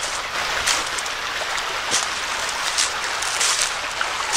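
Footsteps crunching on the trail at a walking pace, over the steady rush of a creek.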